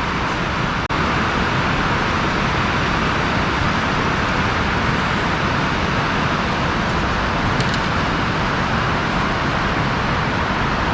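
Steady loud rushing noise with no clear pitch, broken by a brief dropout about a second in.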